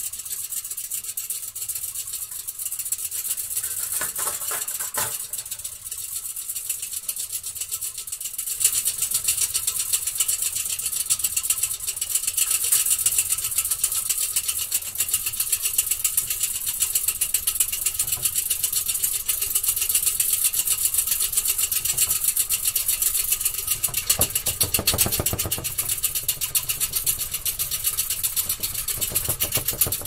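Electric paint mixer running with a fast, even rattle, getting louder about nine seconds in.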